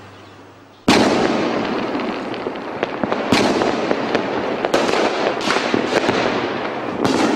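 Fireworks and firecrackers going off: a sudden loud bang about a second in, then dense crackling broken by several sharper bangs.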